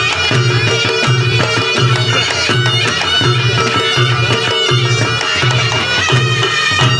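Reog Ponorogo gamelan music played live: drums and gongs keep a steady, driving beat with rapid struck accents, while a shrill reed pipe holds long notes above.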